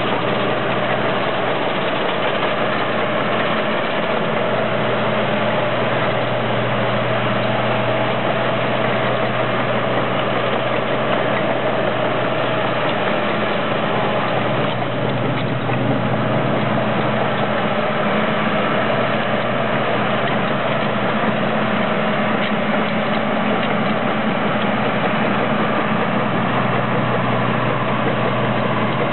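Caterpillar D5C crawler dozer's diesel engine running steadily as the machine drives and turns.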